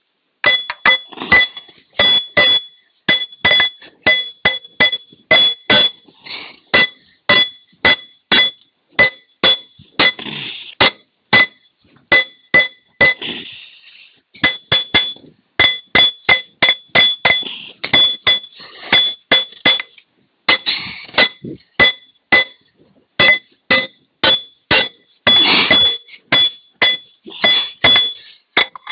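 Steady series of hammer blows on steel, about two to three a second with two short pauses, each strike ringing with a clear metallic tone: hammering on an excavator's final-drive sprocket to break the seized sprocket loose.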